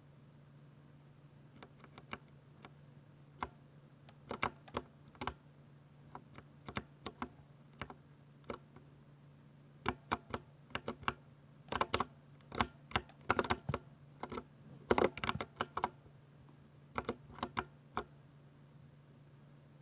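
Typing on a 60% mechanical keyboard with silver switches: irregular keystroke clicks, sparse at first, then quick runs of keys in the middle, stopping a couple of seconds before the end. A steady low hum underneath.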